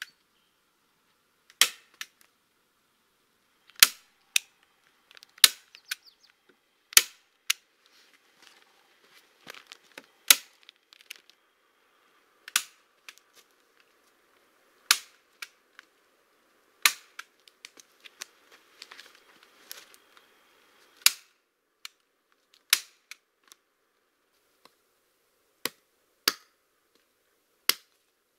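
Sharp snapping clicks from a hand tool fastening plastic sheeting onto the log roof, one every one to two seconds, several followed by a quieter second click.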